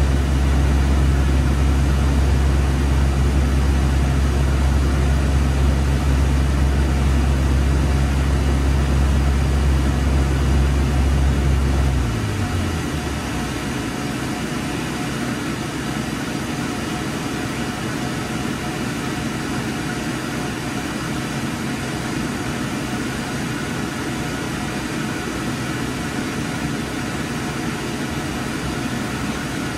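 Low, steady motor hum from projection-booth machinery stops about twelve seconds in, sliding down in pitch as it shuts off. A steady hiss carries on after it.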